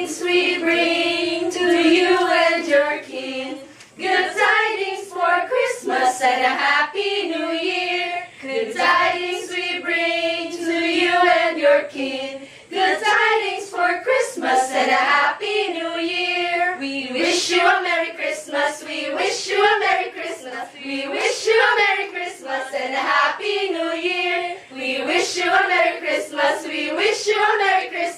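A group of women singing a Christmas carol together.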